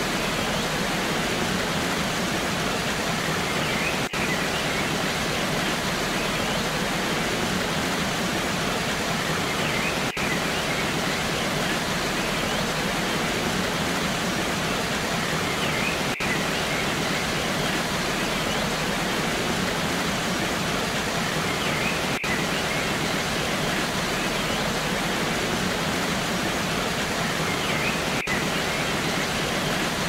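Steady rushing of a waterfall, an even white-water noise with a brief dropout about every six seconds.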